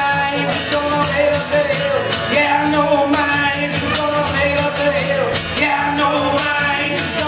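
Live acoustic guitar strummed in a steady rhythm while a man sings a held, drawn-out melody over it.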